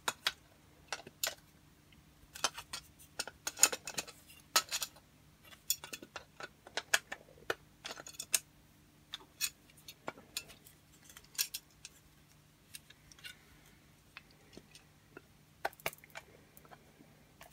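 Irregular small clicks and taps of metal hand tools and a steel nut against a 3D-printed plastic part, as the nut is forced into a tight-fitting slot. A faint low hum runs underneath.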